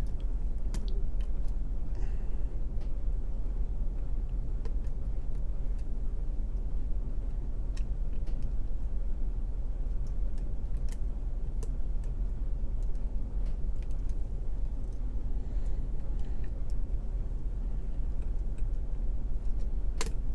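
Faint, scattered clicks of a lock pick and tension wrench working the pins inside a pin-tumbler challenge lock, over a steady low hum.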